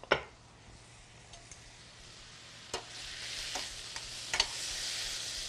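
Arugula and eggplant sizzling in a hot sauté pan as they are stirred and wilted down. A utensil clicks against the pan a few times, and the sizzle grows louder about three seconds in.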